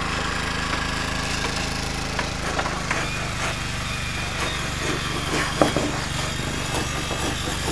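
An engine running steadily at a constant speed, with a few light knocks of tools on wood, the loudest about five and a half seconds in.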